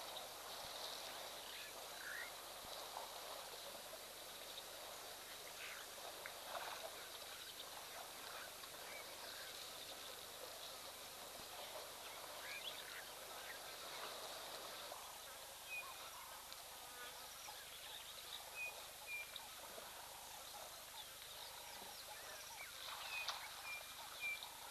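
Faint bush ambience: scattered bird calls and short high chirps over a steady high-pitched hiss.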